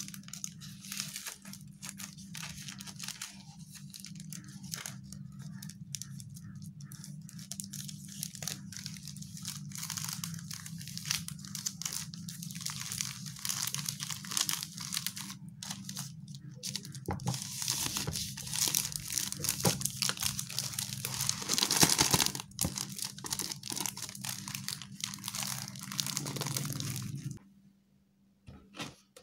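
Clear plastic packing bag crinkling and crackling as a stack of printed paper sheets is slid into it and handled, loudest in a stretch a little past the middle. It stops abruptly near the end, followed by a few light knocks.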